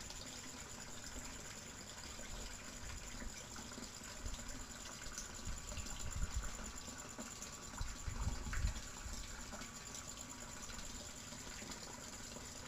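Water pouring steadily from a small pipe into a pond, a faint continuous splashing, with a few low rumbles partway through.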